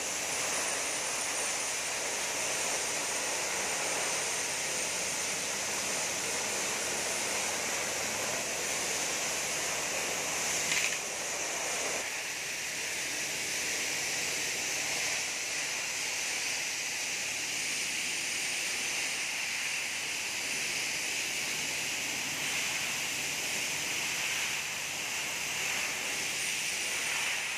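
Steady hiss with an even texture, like rushing air, with one brief louder sound about eleven seconds in.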